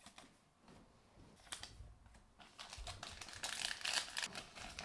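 A foil Panini Optic trading-card pack being torn open: a click about a second and a half in, then a faint crinkling, tearing rustle of the wrapper, loudest near the end.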